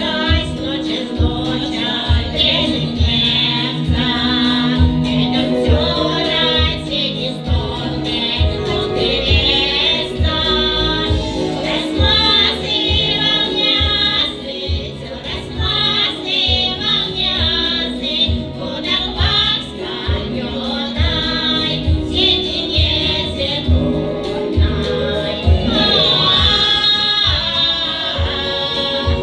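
A small group of women singing a folk song together in several voices into microphones, over a backing track with a steady low beat.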